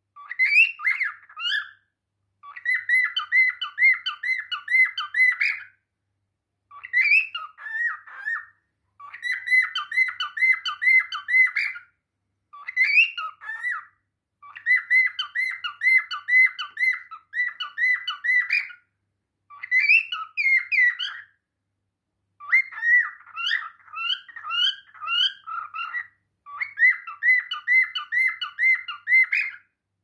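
Male cockatiel singing to its reflection in a cage mirror: phrases of whistled glides and quick runs of repeated chirps, each lasting a few seconds and broken by short pauses.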